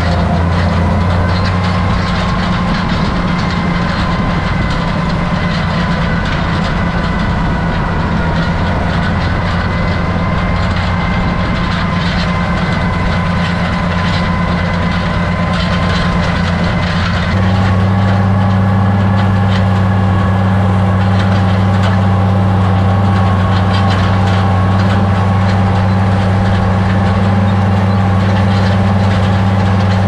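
Farm tractor engine running steadily under load while pulling a New Holland Rolabar wheel rake through hay, with a light rattling over the engine. The engine note steps up slightly in pitch and gets a little louder about 17 seconds in.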